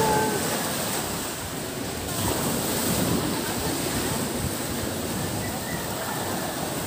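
Sea surf breaking and washing up on a beach in a steady rush, with wind buffeting the microphone.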